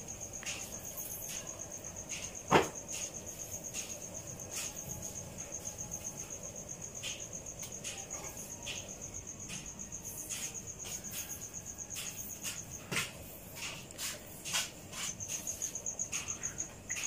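A cricket chirping steadily: a rapid run of high pulses, briefly pausing now and then. Scattered soft clicks sound over it, with one sharp click about two and a half seconds in.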